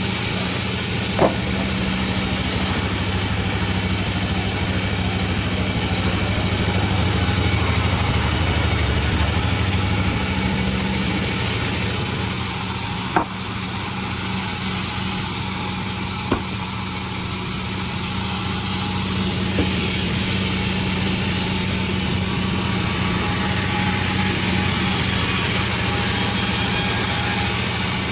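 Sawmill running steadily with a constant engine hum, broken by four short, sharp knocks spread through the clip.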